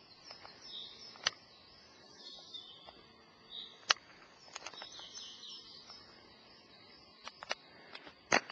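Small birds chirping and singing in woodland, in short scattered phrases, over a faint steady high insect-like hiss. A few sharp clicks sound through it, the loudest about four seconds in and near the end.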